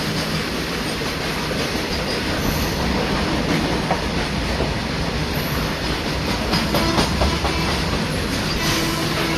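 Train passing close by at speed: a steady rushing rumble of wheels on rails, with a quick run of sharp clacks over the rail joints about two-thirds of the way through.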